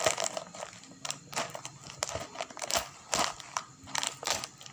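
Packaging being opened by hand, crinkling and crackling in irregular bursts.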